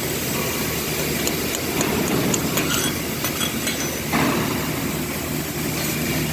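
A steady mechanical hum with a fairly constant pitch, with scattered light metallic clicks and taps over it and a louder rush about four seconds in.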